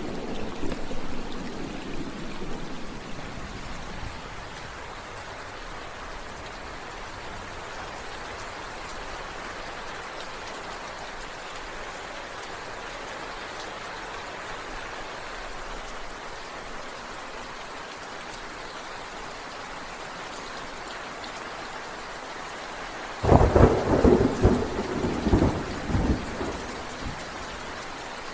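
Steady rain with thunder. A low rumble fades out over the first few seconds, and a sudden crackling thunderclap breaks about 23 seconds in and rolls on for a few seconds.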